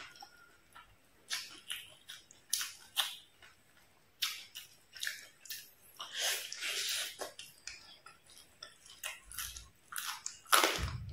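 Close-up chewing and crunching of crispy fried fish: irregular crackly bites and chews, with a longer crunching stretch partway through and the loudest, heavier crunch near the end.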